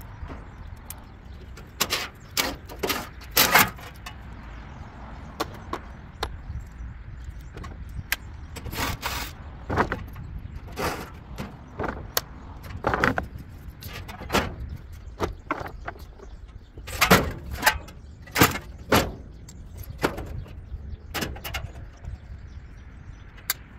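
Sheet-metal cabinet panels of a packaged rooftop air-conditioning unit being pulled off and handled. The panels make irregular metal clanks and rattles, some in quick bursts of several.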